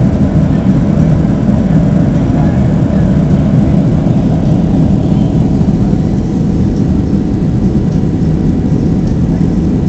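Boeing 737 in flight heard from the passenger cabin: a steady low roar of engines and rushing air.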